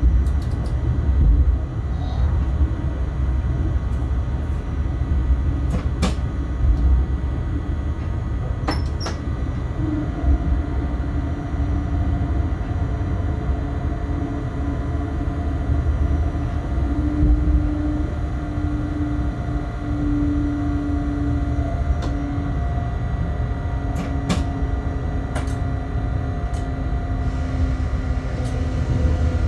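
Cab sound of a Bombardier Traxx BR186 electric locomotive running slowly: a steady low rumble of the running gear with a few sharp clicks from the wheels and cab. From about ten seconds in, a humming whine from the traction drive sets in and slowly falls in pitch.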